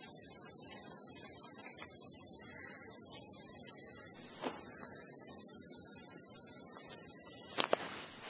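Storm wind through bare trees heard as a steady high hiss, which drops a little past halfway. A few sharp clicks near the end.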